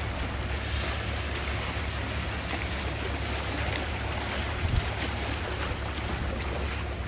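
Sea waves washing steadily, with wind rumbling on the microphone and one brief low buffet about five seconds in.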